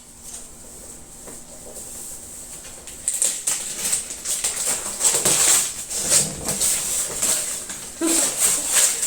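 Gift wrapping and packaging being torn open and rustled by hand. A few faint crinkles come first, then about three seconds in a long run of loud, irregular paper-and-plastic rustling and ripping.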